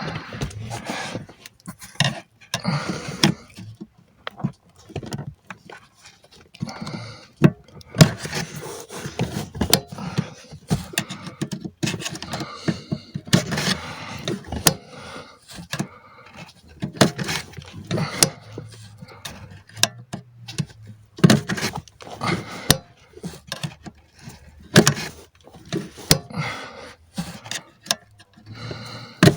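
Hands and tools working on car parts, making irregular sharp clicks and knocks with scraping and rustling, as of plastic covers and wiring being handled.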